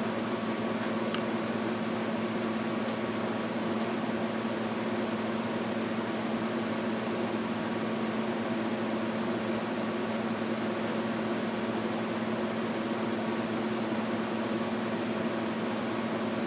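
Steady electric fan hum with a constant low tone over an even hiss, unchanging throughout.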